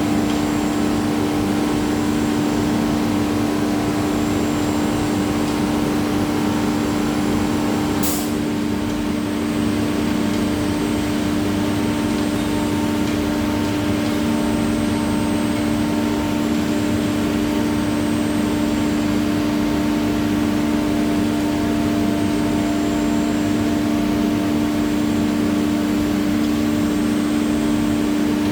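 CNC router spindle running steadily with a strong, even hum, cutting a GRC panel, with a brief sharp hiss about eight seconds in.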